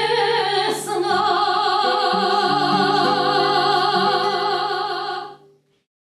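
A woman singing in a trained voice holds one long final note with a strong vibrato, over sustained accompaniment from a domra and a guitar. The accompaniment shifts chords twice under it, and the music stops about five and a half seconds in.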